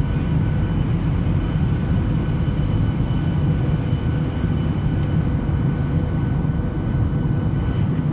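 Steady in-flight cabin noise of an airplane: a deep rumble of engines and airflow, with a faint steady whine over it.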